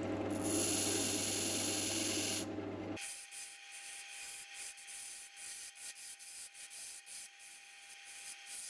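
Wood lathe running with a steady hum and hiss while a pencil marks the spinning firewood blank. About three seconds in it changes to a turning tool cutting into the spinning wood: an irregular, quieter scratchy scraping over a thin steady whine.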